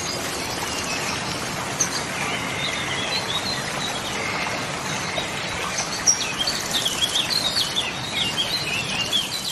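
A flock of gulls calling around a boat, many short high cries that grow thick in the second half, over a steady rushing background noise.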